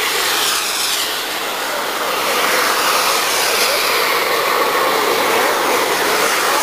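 Several radio-controlled model jets flying overhead, their jet engines making a steady, loud hissing whine whose pitch slowly rises and falls as they pass.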